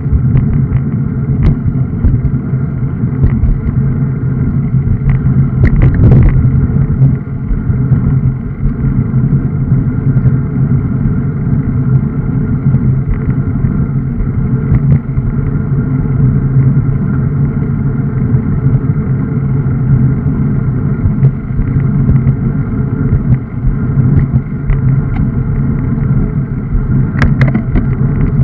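Wind buffeting the microphone of a camera riding on a moving road bike, a loud steady low rumble mixed with tyre and road vibration, with a few brief clicks.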